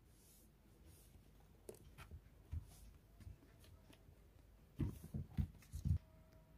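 Faint handling noise: a few soft scattered clicks, then a short cluster of soft knocks about five seconds in.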